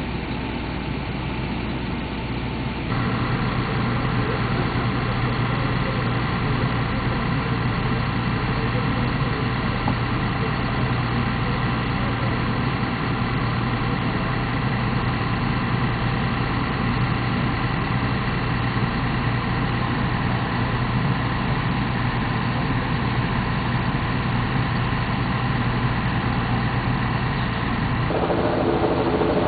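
Large engine idling steadily: a constant low hum with steady higher tones over it. It steps louder about three seconds in and shifts in tone near the end.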